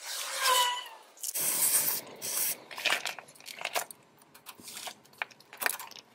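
A hiss lasting about a second, then a string of light metallic clinks and scrapes from hand tools and locking pliers working on the axle end of a Dana 35c rear axle, at the exposed drum-brake backing plate.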